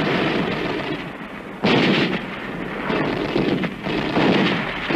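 Battle gunfire and artillery: a run of heavy booms about one to one and a half seconds apart, each dying away over about a second.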